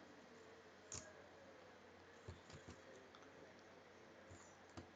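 Near silence: quiet room tone with a few faint computer-mouse clicks, one about a second in, three close together in the middle and one near the end, as a line is drawn on a slide.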